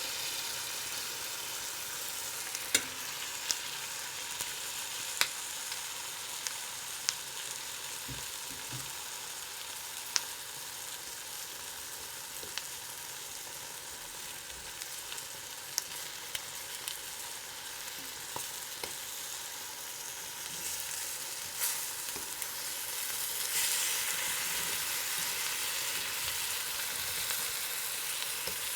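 Eggs frying in a pan: a steady, high-pitched sizzle with scattered sharp pops and crackles. The sizzle swells louder about three-quarters of the way through.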